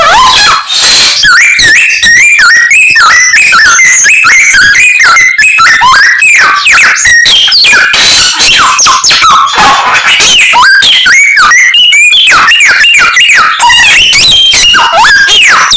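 Samyong songbird singing non-stop in a rapid, ever-changing jumble of whistles, trills and chirps, a mimicking medley of other birds' calls.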